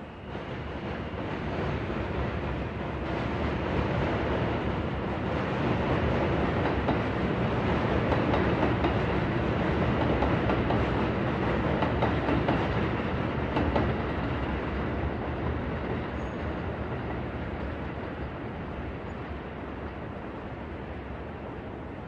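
A train passing through city night ambience: a rumbling noise that grows louder over the first several seconds, peaks in the middle, then slowly fades away.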